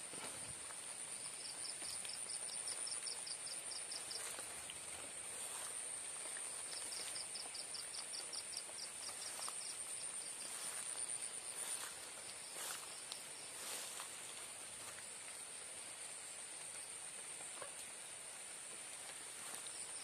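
Night insects calling: a steady high-pitched trill throughout, with two runs of rapid pulsed chirps, one from about one to four seconds in and another around seven to ten seconds, over a soft hiss of rain.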